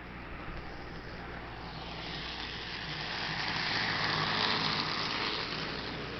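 HO scale model freight train, pulled by a Mehano SD40-2 locomotive, running on track: a steady rolling whir of wheels and motor. It grows louder as the cars pass close, peaks about four seconds in, then eases.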